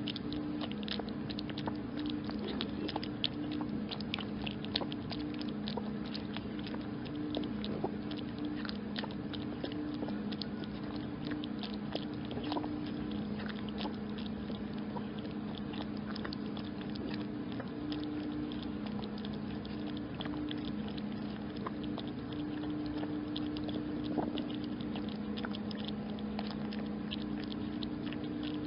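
Kitten lapping milk from a small ceramic bowl: rapid, continuous wet tongue clicks. A steady low hum runs underneath.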